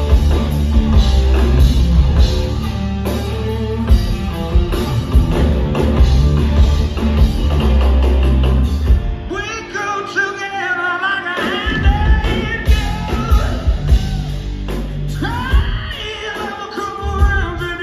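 Live rock band playing loudly: hollow-body electric guitar and drums with heavy bass for about the first nine seconds. Then the low end drops away and a male lead singer comes in over lighter backing.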